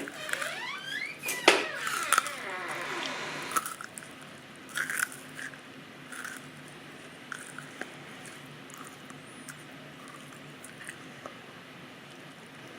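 Close-up chewing and crunching of a hard ginger cough drop between the molars, with wet mouth squishes and squeaky sliding sounds. Dense and loud for the first three seconds or so, then only occasional small clicks and smacks.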